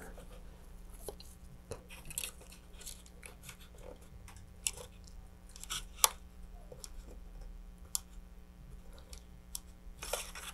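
Faint, irregular small clicks and rubs from a wooden dowel and gloved hands pressing epoxy clay into a thin plastic fin fairing of a model rocket. The sharpest click comes about six seconds in, over a low steady hum.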